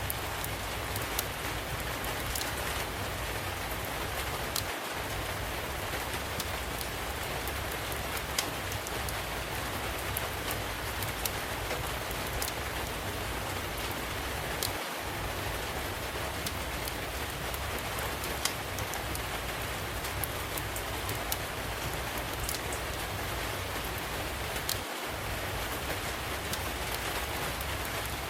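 Steady rain mixed with a wood fire crackling, sharp pops scattered through an even hiss of rainfall.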